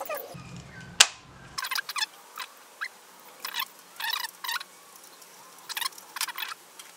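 Plastic housing of an automatic jar opener: one sharp click about a second in, then a run of short, irregular squeaks and creaks as small screws are driven into the plastic case with a screwdriver.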